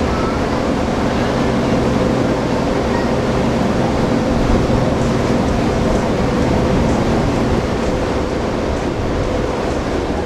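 A large container ship passing close: a steady low engine hum over the rushing wash of its bow wave.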